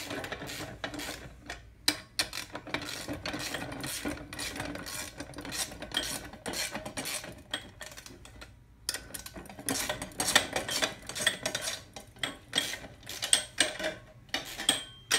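Wrench and socket tightening nuts onto threaded stainless steel rods: irregular metal clinks and scraping.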